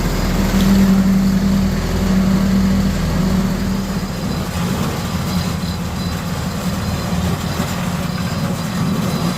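Engine of a concrete mixer running steadily during the pour, a constant hum that gets somewhat weaker about four seconds in.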